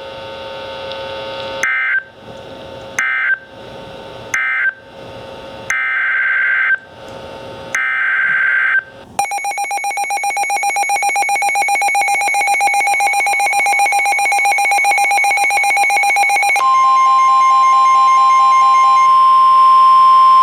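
NOAA Weather Radio alert signals through a weather radio's speaker: five short screechy SAME data bursts, the last two longer, then a rapid electronic warbling alert from the receivers for about seven seconds, then the steady 1050 Hz warning alarm tone held for about five seconds.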